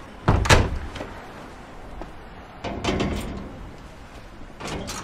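Wrought-iron garden gate with frosted panels swung shut with a bang about a quarter second in, followed by a few quieter knocks and rattles of the gate.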